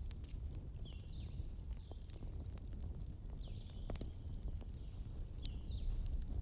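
Fireplace fire with a steady low rumble and scattered sharp crackling pops. Several short, high, falling chirps and one longer high tone in the middle ride over the fire.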